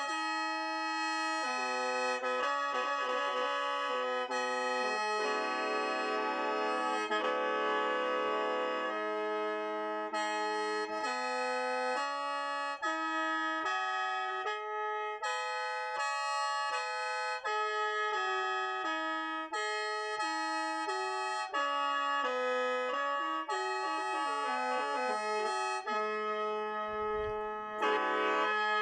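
Lao khaen, the bamboo free-reed mouth organ, played continuously: a melody of shifting chords over a held low drone note.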